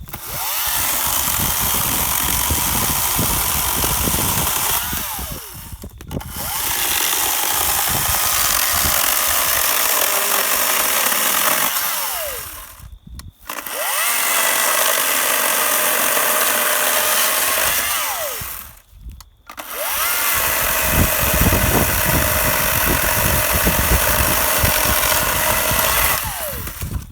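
WEN 40V cordless electric chainsaw cutting through hard wood in four long runs, the motor briefly easing off between cuts about 5, 13 and 19 seconds in.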